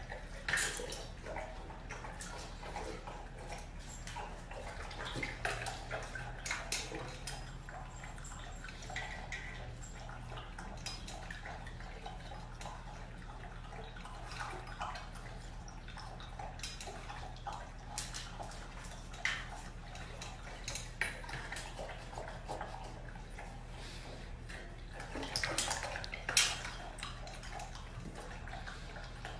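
German Shepherd puppy lapping water from a stainless steel bowl: irregular wet laps and splashes with occasional clinks against the metal, and a louder flurry of laps near the end.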